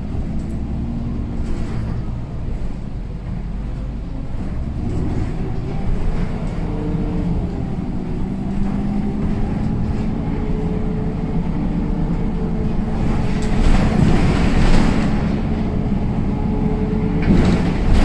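MAN Lion's City city bus's 228 kW diesel engine and four-speed Voith automatic gearbox, heard inside the cabin while the bus drives on, the engine note drifting up and down with load and gear. Two louder, noisier stretches come about 13 seconds in and again near the end.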